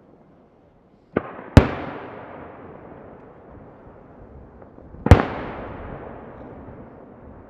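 Aerial firework shells bursting. A lighter bang is followed at once by a loud boom about a second and a half in, then another loud boom about five seconds in, each trailing off in a long echoing rumble.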